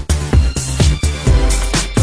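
Electronic dance-style intro music with a steady beat of deep kick drums, about two a second, over a sustained bass.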